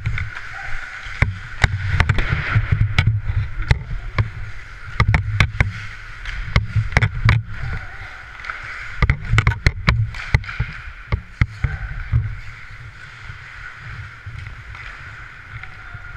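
Ice hockey heard from a helmet-mounted camera: skate blades scraping and carving the ice, with many sharp clacks of sticks and puck coming in clusters. A low rumble from the skater's movement sits under it on the helmet microphone.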